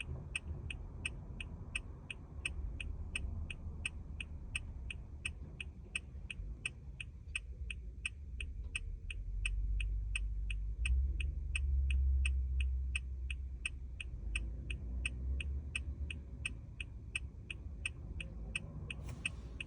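2014 Toyota Corolla's hazard warning lights ticking at an even pace, about two to three clicks a second, over a low rumble.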